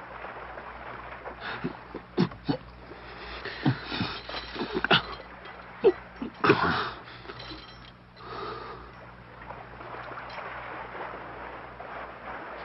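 Two men wrestling on a wooden raft: a flurry of short grunts and gasps of effort, with the clink of iron chains, in the first half. A steady wash of the sea runs underneath.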